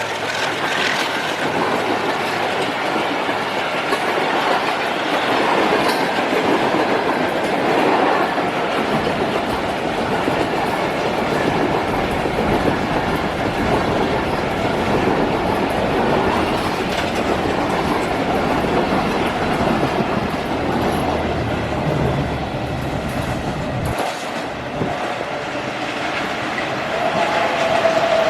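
A train passing close by, its wheels clattering steadily over the rail joints. A steady tone comes in near the end.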